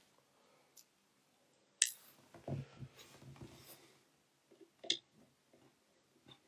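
Small tools and phone parts being handled during an iPhone 6s repair: a sharp click about two seconds in, soft scraping and handling, then another click about five seconds in.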